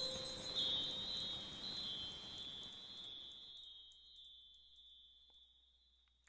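Closing music of high, bell-like chimes: a few light strikes ringing over sustained high tones, fading away until gone about five seconds in.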